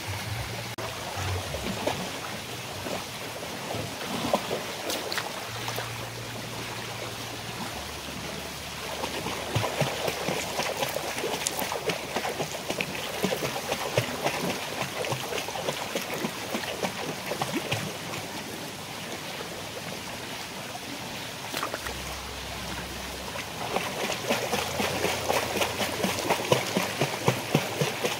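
Swimming pool water splashing and trickling, a steady wash of water noise full of small drips and spatters, swelling about a third of the way in and again near the end.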